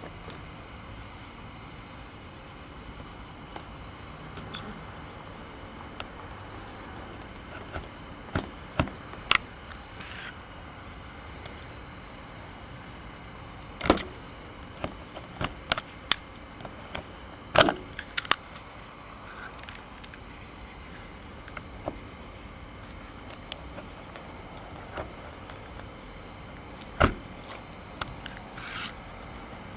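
Scattered sharp clicks and knocks from hand work with a small tool at a car's door sill plate, a few of them much louder than the rest. Under them runs a steady high-pitched hum like night insects.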